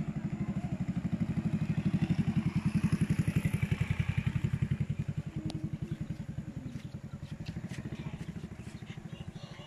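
A small motorcycle riding past at low speed, its engine running with a quick, even beat that grows louder over the first few seconds and then fades away as it moves off.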